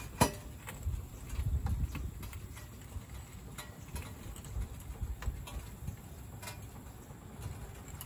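A floor jack being let down so that a Nissan Pathfinder settles onto steel jack stands: a sharp metal clunk just after the start, then scattered light clicks over a low rumble.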